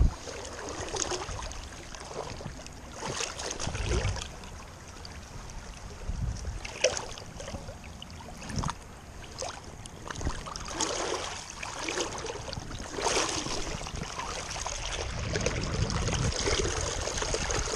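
River water splashing and swirling around a person moving in shallow water, with irregular soft knocks and low thumps.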